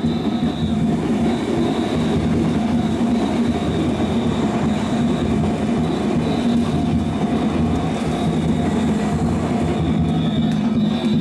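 A Kintetsu Minami-Osaka Line train passing over a level crossing: a loud, steady rush of wheels on the rails that does not let up.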